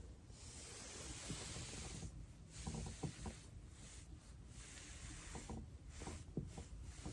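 Body rolling on a foam roller: a hissing, rubbing swish of clothing and skin against the foam that comes in uneven swells with brief gaps, with a few faint creaks.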